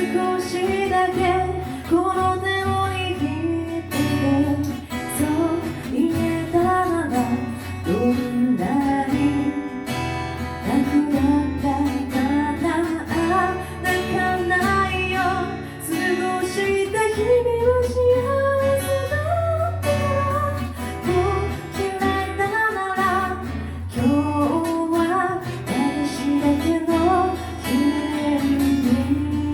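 A live band performing a slow pop song: a sung melody that rises and falls over plucked and strummed acoustic accompaniment.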